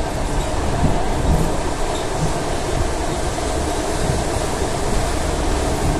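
ED4M electric multiple unit running along the track: a steady rumble of wheels on rails with irregular low knocks.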